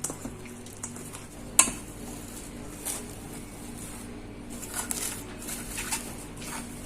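A utensil clinking and scraping against a mixing bowl as chicken pieces and vegetables are stirred through a satay sauce, with one sharp knock about one and a half seconds in.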